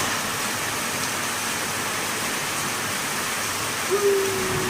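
Steady hiss of heavy rain from a thunderstorm sound effect, with a brief faint tone about four seconds in.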